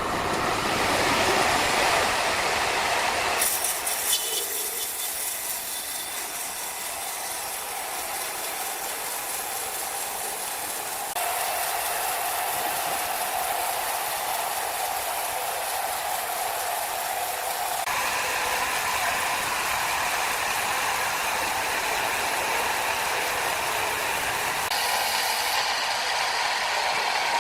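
Sawmill machinery running and cutting wood: a loud, steady, rasping mechanical noise. Its tone and level change abruptly several times.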